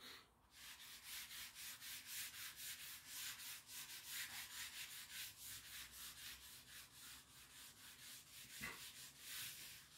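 Cloth rubbing chalk off a blackboard in quick back-and-forth strokes, about five a second, faint and hissy.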